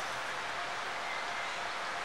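Steady, even hiss of outdoor nature ambience, with no bird calls inside it.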